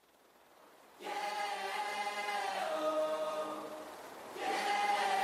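Music intro: a choir singing held chords in two long phrases, the second starting about four seconds in.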